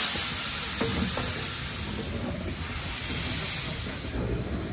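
Steady hiss of escaping steam, easing off near the end.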